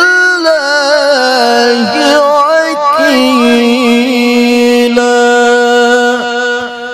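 A man's voice reciting the Quran in the melodic murattal/tilawah style into a microphone, drawing out one long ornamented note: the pitch wavers through quick turns, then settles into a steady held tone that stops just before the end.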